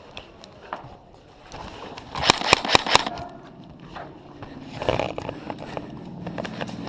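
Airsoft gunfire: a quick run of about half a dozen sharp shots a little over two seconds in, amid scattered lighter clicks.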